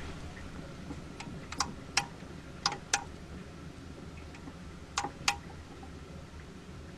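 Six sharp, short clicks with a brief metallic ring, falling in three pairs a fraction of a second apart, over a steady low hum.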